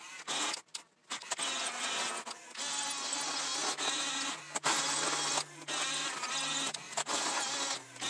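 Electric drive motors and gearboxes of a 1/24-scale Diecast Masters RC bulldozer whining as the crawler drives across dirt. The whine cuts out and starts again several times as it stops and moves off, and a steady low hum joins in about halfway through.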